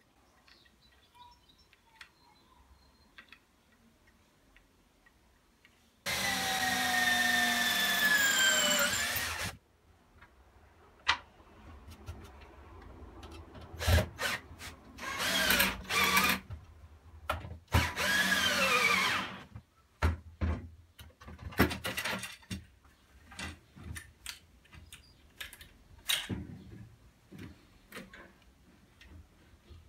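Cordless drill running into wood in runs of a few seconds, its motor whine falling in pitch each time as the load builds. Between and after the runs come scattered wooden knocks and clicks as the wooden frame parts are handled.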